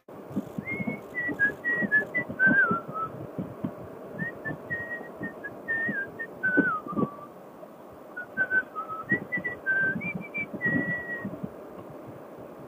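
A person whistling a tune in short phrases, stepping and gliding between notes, over a low rumble of wind and riding noise.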